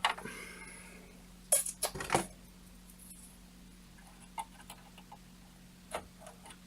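Small sharp clicks and light metallic taps of a hand tool working at jumper links on a computer motherboard: one click at the start, a quick cluster about two seconds in, then a few faint taps.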